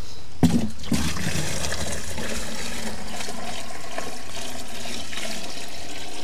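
Water poured out of a bucket onto a freshly sown vegetable bed: a steady splashing pour, after a couple of knocks near the start.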